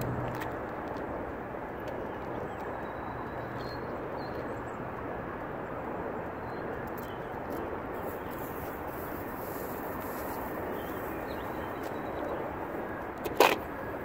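Steady outdoor background noise with the motorcycle engine silent, and one sharp knock near the end.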